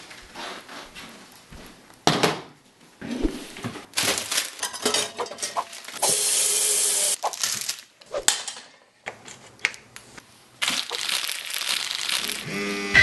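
Water from a kitchen tap running into a stainless steel saucepan for about a second, amid scattered knocks and clanks of the pot being handled.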